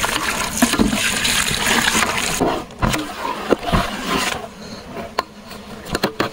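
Water poured from a plastic bowl into a large aluminium cooking pot of fish and spices, splashing steadily for about two and a half seconds and stopping, then a long metal ladle stirring in the pot with a few sharp knocks against it.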